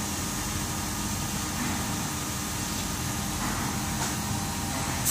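Factory machinery running with a steady hum and hiss, a few faint steady low tones under an even noise.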